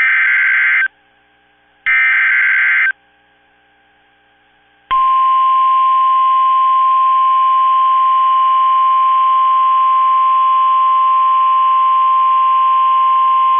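NOAA Weather Radio Emergency Alert System alert. It begins with two harsh, buzzing squawks of digital SAME header data, each about a second long, with a second's gap between them. About five seconds in, the steady single-pitch 1050 Hz warning alarm tone starts and holds for about nine seconds, announcing an alert message about to be read.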